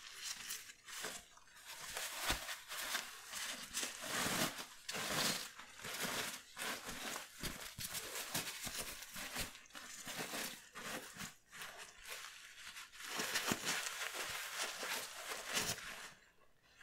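Crinkling and rustling of a TENA disposable incontinence pant's soft nonwoven fabric and plastic-backed pad as gloved hands handle and stretch it: a dense, crackly rustle that drops away near the end.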